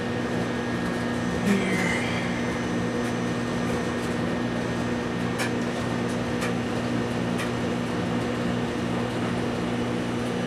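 Steady low electrical or fan-like hum with an even hiss, with a few faint ticks now and then.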